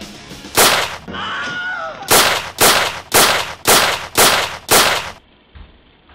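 Gunfire: one loud shot, a short wavering tone, then six more shots about half a second apart, stopping suddenly.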